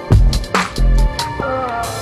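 Electronic background music with a heavy beat and synth notes that slide in pitch.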